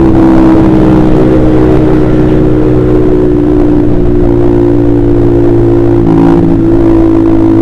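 Honda CBR150R's single-cylinder engine running through an aftermarket KJ Pro Performance exhaust while riding, holding steady revs, with a slight drop in pitch at the start and a change in engine note about six seconds in.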